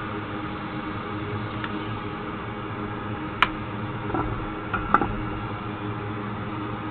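Steady whirring fan hum from electric bench equipment, with a few light clicks and taps between about 2 and 5 seconds in, the sharpest about halfway through.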